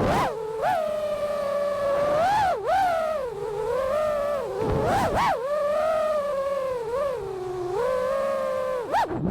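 Brushless motors and propellers of a 6S 5-inch FPV freestyle quad with 2207 1850kv motors, whining steadily. The pitch swoops up and down again and again with throttle punches and chops, with a few deeper dips.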